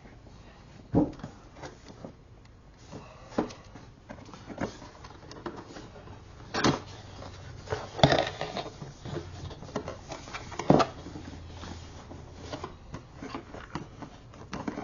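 Cardboard packaging of a microphone box being handled and opened: a string of separate knocks, taps and rustles, the sharpest about eight and eleven seconds in.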